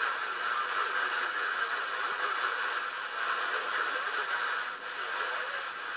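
CB radio receiver on channel 6 giving out a steady hiss of static through its speaker. The level swells and dips slightly, the band noise of a channel listening for distant stations coming in by skip.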